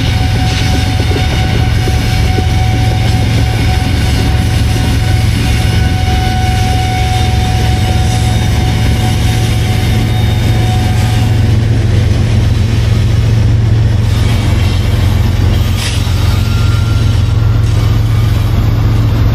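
Diesel freight train running, its locomotive engines giving a loud, steady low drone with rail noise over it.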